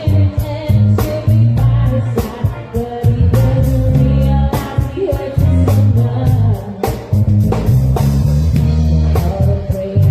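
Live band playing a funk-pop cover: a heavy bass line under a drum kit with regular hi-hat and cymbal hits, guitar, and a singer.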